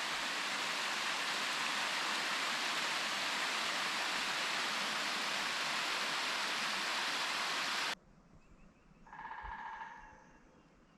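Water of a small waterfall cascade rushing steadily, cutting off abruptly about eight seconds in; after it, a brief faint pitched ringing tone.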